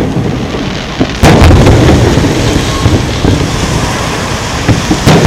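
Aerial firework shells bursting: a sharp, loud boom about a second in, followed by a long low rumble that slowly dies away, then another sharp boom near the end.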